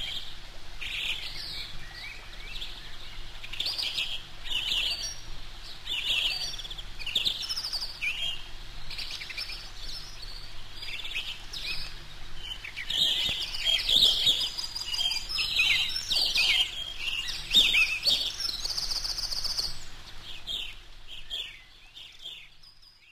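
Eurasian coot chicks on the nest giving many short, high peeping calls in quick succession, which fade out near the end.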